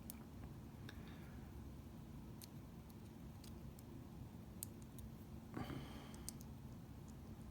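Faint, scattered clicks and light taps of small metal lock parts being handled, with a short scrape about five and a half seconds in.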